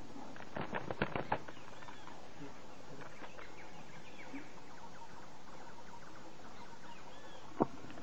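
A woodpecker striking at a snake at its nest hole in a tree trunk: a quick run of sharp knocks from about half a second to a second and a half in, and one more sharp knock near the end. Faint chirping bird calls sound over a steady background hiss.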